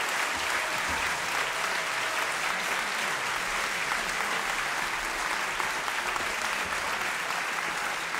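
Large theatre audience applauding steadily.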